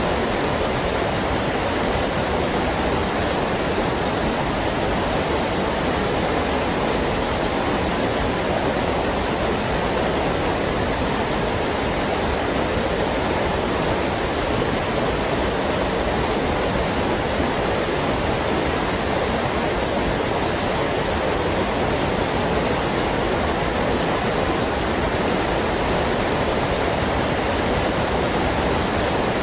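Water rushing steadily over rocks, as in a stream's rapids or a small waterfall.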